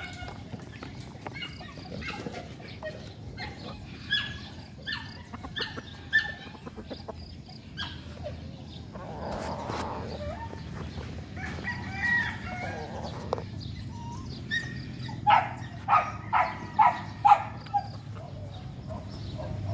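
Chickens calling: many short clucks and calls, with a run of about six loud calls in quick succession about three-quarters of the way through.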